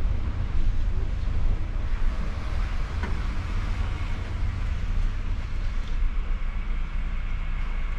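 Tour coach's engine running, a steady low rumble with a light hiss over it.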